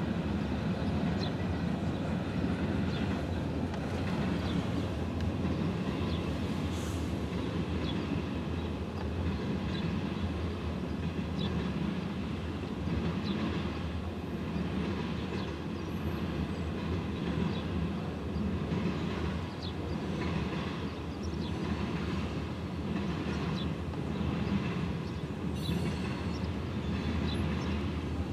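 Freight cars of a CN manifest train rolling past: a steady rumble of steel wheels on rail with scattered clicks of wheels over the rail joints, and two brief high sounds, one about six seconds in and one near the end.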